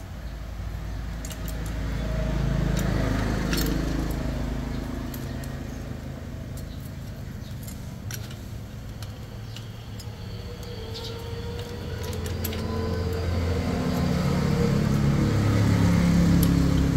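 Steel and friction clutch plates from a KTM Duke clicking and clinking against each other as they are handled and pulled from the clutch basket during a clutch plate change. A low rumble swells twice underneath.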